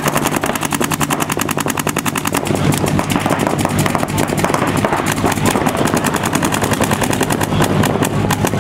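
Paintball markers firing a rapid, continuous stream of shots, many per second, from more than one gun.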